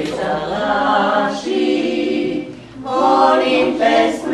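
A small women's vocal group singing unaccompanied in several voices, in long held phrases with a brief break about two and a half seconds in.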